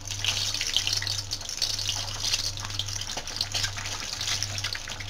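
Whole boiled eggs frying in hot mustard oil in a kadhai, a busy sizzle full of tiny crackles and pops as they are added one by one.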